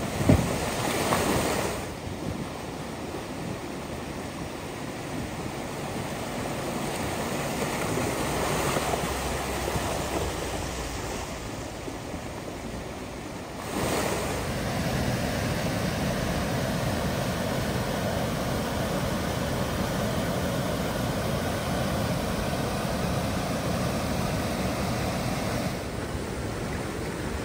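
Steady rush of flowing creek water with some wind on the microphone. It is louder for the first two seconds and steps up again about halfway through.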